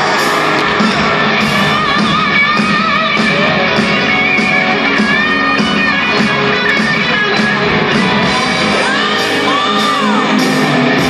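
Live rock band playing through a stadium PA, a singer's voice over drums and guitar, with crowd shouts mixed in, heard from the stands of a large roofed arena.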